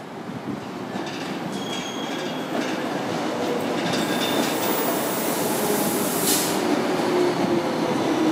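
ÖBB class 4020 electric multiple unit pulling into the platform, its running noise growing louder as it approaches. Brief high wheel squeals come through, there is a burst of hiss about six seconds in, and a low whine falls slightly in pitch near the end as the train slows.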